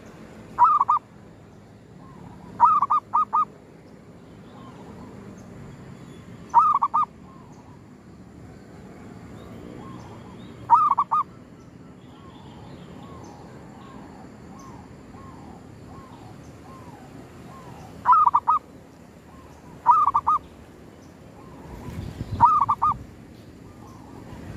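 Zebra dove (perkutut) in a wire cage cooing: seven short bursts of two to four quick coos, a few seconds apart, with softer, fainter coos in between.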